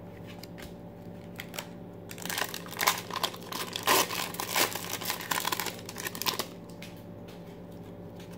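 Foil wrapper of a trading card pack crinkling as it is torn open by hand. A few light clicks of handling come first, then dense crinkling from about two seconds in until about six seconds in.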